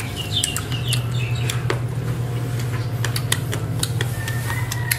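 Repeated sharp clicking mouth sounds of chewing, over a steady low hum. Short high chirps of small birds come in the background about half a second in, and again near the end.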